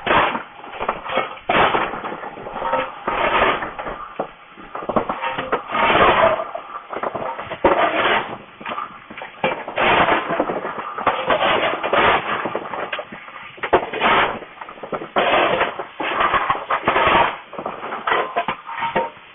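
Coal being fired into a steam locomotive's firebox: a coal shovel scraping and clattering again and again, a loud stroke every second or two.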